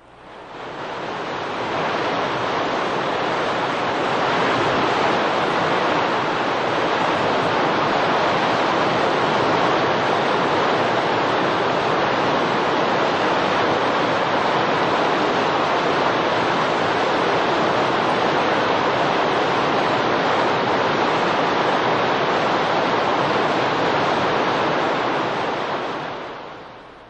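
Steady rushing water, an even noise that fades in over the first couple of seconds and fades out near the end.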